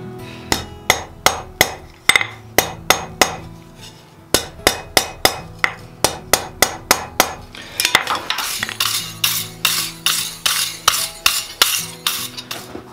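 Hand hammer striking a thin red-hot wrought iron bar on a steel anvil in a steady rhythm of about three blows a second. Past the middle the blows come closer together, about four a second.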